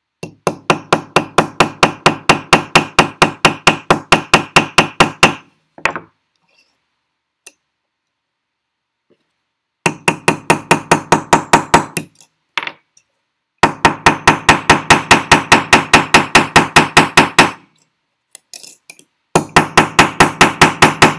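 Small metalsmithing hammer tapping quickly on a wire rivet set on a steel bench block, about five light strikes a second with a metallic ring. The strikes come in four runs with short pauses between as the rivet end is spread and evened out into a round head.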